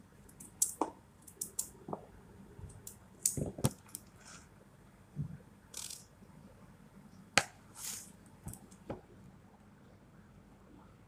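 Raw potato being cut into cubes by hand and the pieces dropped into a plastic tub: irregular clicks and soft knocks, stopping about nine seconds in.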